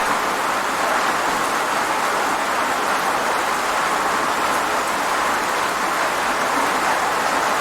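Steady rain falling: a continuous, even hiss of many drops with no single drop or gust standing out.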